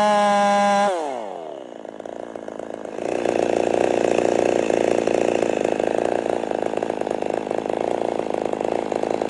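Ported Husqvarna 55 two-stroke chainsaw held at full throttle with a steady high whine; about a second in the throttle is released and the revs fall quickly to a quieter idle. About three seconds in it is opened up again and runs loud and ragged under load in the wood.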